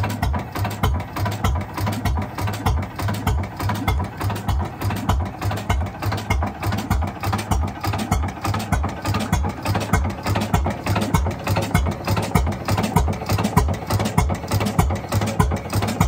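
6 hp IHC Titan single-cylinder hit-and-miss engine running, its exhaust beats coming in a steady, even rhythm.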